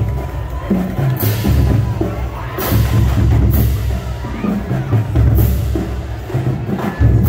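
A high school marching band's percussion section playing: pounding bass drums with repeated cymbal crashes.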